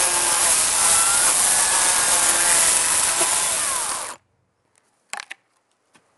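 Dolmar electric chainsaw running under load as its bar plunges deep into a log, then stopping abruptly about four seconds in. A short knock follows about a second later.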